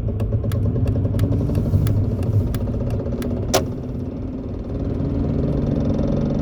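2002 Mercury Cougar's 2.5L V6 engine and road noise heard from inside the cabin as the car accelerates, with a steady hum that rises gently in pitch. A quick regular ticking, about three clicks a second, runs through the first half and stops about three and a half seconds in with one sharper click.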